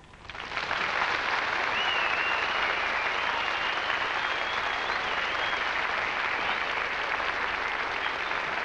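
Studio audience applauding, beginning just after the song's final note and keeping up at an even level. A thin high whistle sounds above the clapping for a few seconds near the start.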